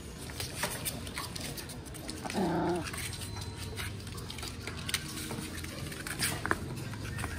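Puppies scuffling together on cardboard, with scattered scratches and taps of paws on the cardboard and one short puppy bark about two and a half seconds in.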